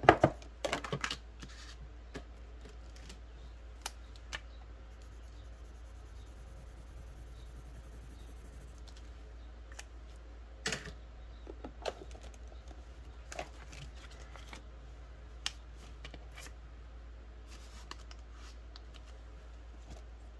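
Handling noises on a wooden tabletop. A quick cluster of knocks and clicks as a cash binder is set down, then scattered light clicks and paper rustles as a challenge card and cash envelopes are handled.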